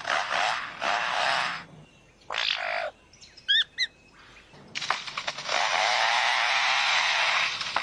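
Lyrebird giving mimicked calls: harsh rasping bursts, a few short chirps about three and a half seconds in, then a long continuous rasp from about five seconds in to near the end.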